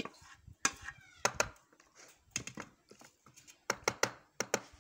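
Cooking utensils clinking and knocking against a metal pot in a quick, irregular run of sharp strokes, about fifteen in all.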